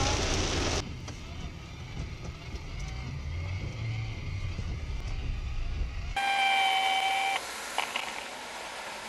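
Heavy rain and wiper noise on a car windscreen cut off abruptly about a second in, leaving the low rumble of a car driving slowly on a wet road, heard from inside the cabin. About six seconds in the rumble drops away and a steady beep sounds for about a second.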